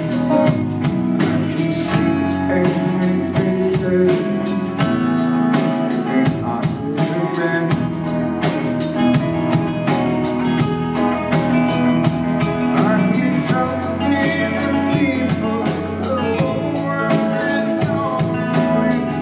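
Live band playing a slow song: electric guitars and an acoustic guitar over a drum kit keeping a steady beat, with singing at times.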